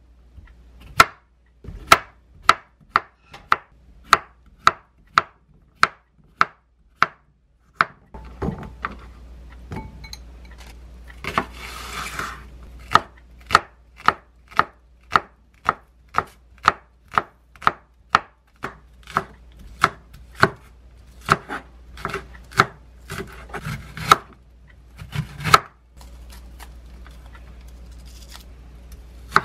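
Chef's knife cutting vegetables on a wooden cutting board: slicing a cucumber, then chopping green onion and slicing an onion, in a steady run of sharp knocks against the board at about two to three cuts a second. The cutting pauses briefly about 8 seconds in and stops for good a few seconds before the end.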